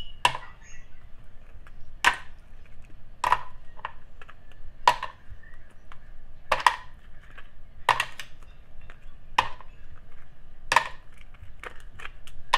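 Ice cubes being knocked out of a plastic ice cube tray into a plastic blender jar: a sharp clack about every second and a half.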